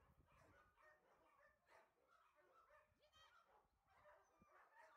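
Near silence with faint, distant animal calls: many short calls scattered through, and a brief higher call about three seconds in.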